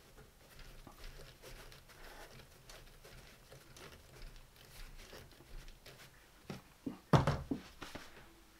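Faint rustling and small clicks as a cotton buffing mop is handled and fitted onto a bench polisher's spindle, with one louder short knock about seven seconds in.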